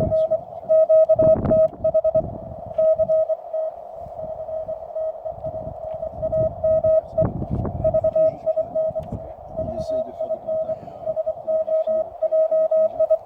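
Morse code (CW) tone from a Weber MTR QRP transceiver: a single steady pitch keyed on and off in dots and dashes, with short pauses between groups. Low rumbles sound underneath, loudest about a second in and again around seven seconds.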